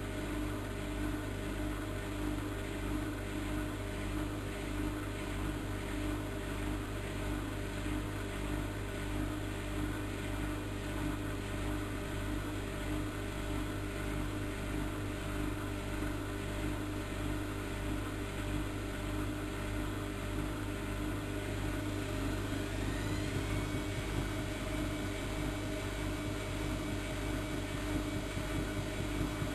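Bauknecht WAK7760 washing machine running on its Bunt 40 (coloured 40 °C) programme: a steady motor hum and drum noise, with a whine that rises in pitch about three-quarters of the way through and then holds as the motor speeds up.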